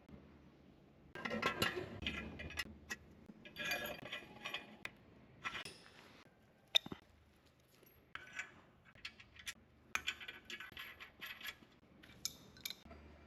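Small metal parts and tools clinking and clattering as they are handled, in irregular bursts with sharp clicks.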